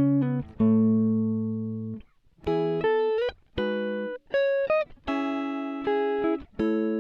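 Background music: a guitar playing a slow melody of plucked notes that ring and fade, a few of them sliding up in pitch.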